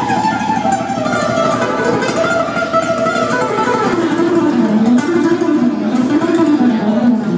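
Solo acoustic-electric guitar playing a melody that steps down in pitch over the first few seconds, then moves back and forth in the low register.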